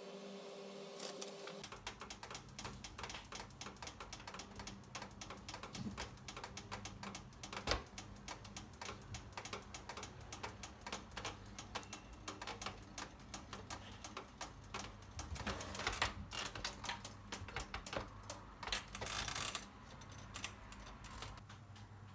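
Typing on a computer keyboard: a long run of quick, irregular key clicks that starts about a second in and stops shortly before the end.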